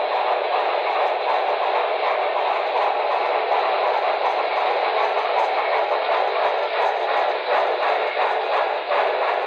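Steam running sounds from a Broadway Limited Paragon 3 HO-scale Norfolk & Western Y6b 2-8-8-2 model, played through its small onboard speaker as it runs: a steady wash of steam exhaust with faint, evenly spaced clicks, thin and without any deep bass.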